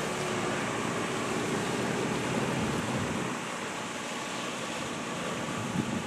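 Steady drone of a passing small fishing boat's engine over wind and small waves on a pebble shore, easing a little about halfway through.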